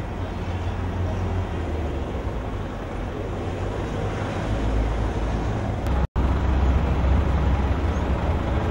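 Steady low rumble of passing road traffic, with a sudden brief dropout about six seconds in, after which it is a little louder.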